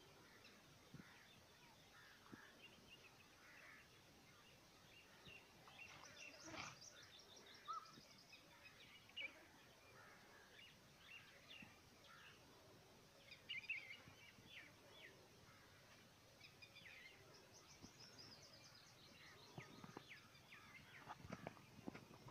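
Faint outdoor ambience with scattered bird chirps and two rapid rattling trills, one about a third of the way in and another past three-quarters, with a few soft clicks near the end.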